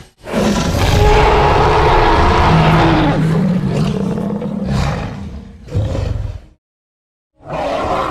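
Spinosaurus roar sound effect: one long, deep roar lasting about five seconds, its pitch falling near the end, then a shorter roar. After about a second of dead silence, another short roar starts near the end.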